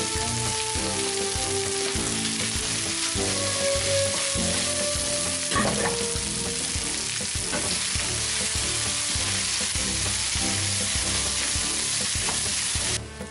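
Chorizo, onion and rice sizzling in hot olive oil in a frying pan while being stirred with a wooden spatula: a steady frying hiss with stirring, which cuts off suddenly near the end.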